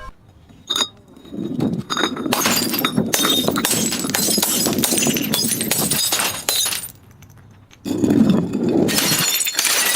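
Glass bottles breaking and being crushed: a sharp crack about a second in, then several seconds of continuous crunching and shattering glass, a short pause, and another burst of crunching near the end.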